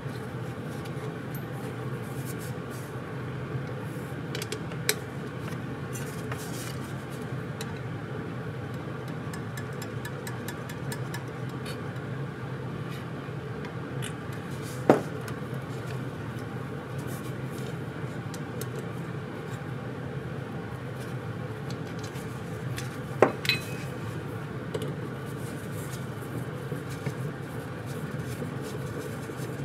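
Small metal carburetor parts clicking and clinking as they are handled and fitted, with a few sharp isolated clicks: one midway and two close together about three quarters through. A steady low hum runs underneath.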